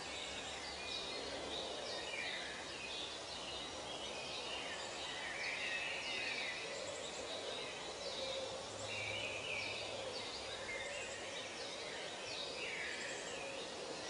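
Outdoor ambience of many short bird chirps and calls, scattered irregularly, over a steady background hiss.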